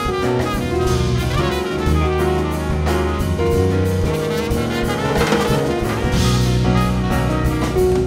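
Small jazz band playing live: trumpet and saxophones holding notes over piano, bass and drum kit.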